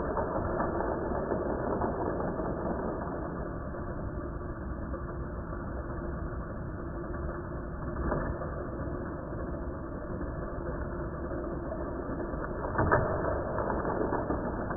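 Battery-powered Hot Wheels track boosters running with a steady mechanical whir, and brief louder clatters as cars pass along the track, the loudest about 13 seconds in.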